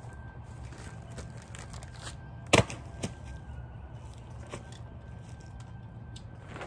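A sharp click of the camping cube tent's clips on the pop-up canopy's frame as it is unhooked, about two and a half seconds in, a softer one half a second after and a faint one later, over a steady low hum.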